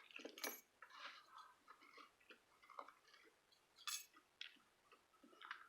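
Quiet scattered clicks and short scrapes of small metal parts from handling and dismantling a freshly picked ABUS 72/40 aluminium-body padlock, with two sharper clicks about half a second and four seconds in.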